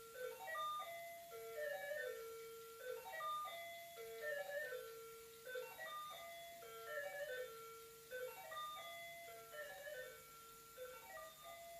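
Electronic toy playing a simple tinny tune of single beeping notes, the same short phrase repeating over and over.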